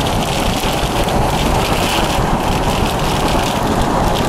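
Steady rushing noise of a vehicle driving on a wet road in rain, tyre, wind and rain sounds blended together.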